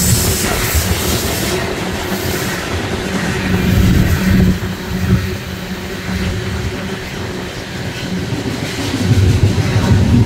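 Loaded coal hopper cars of a freight train rolling past below, a continuous low rumble with a steady hum under it, swelling louder about four seconds in and again near the end.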